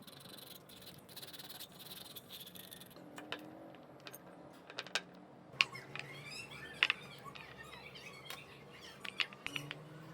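Faint chirping animal calls and scattered light clicks over a low background hiss.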